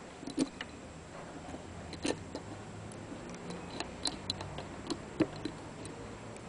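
Irregular light metallic clicks and taps as a metal rod and parts of a brake master cylinder are worked by hand. About a dozen clicks, with the sharpest ones near the start, about two seconds in and about five seconds in.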